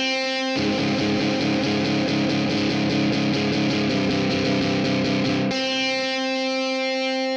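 GarageBand's virtual Hard Rock electric guitar, run through drive and flanger pedal effects, playing a dense run of quick notes. About five and a half seconds in it settles on a single held note that rings on.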